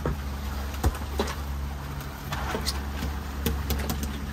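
Boat engine running steadily, with scattered knocks and clicks, the sharpest a little under a second in.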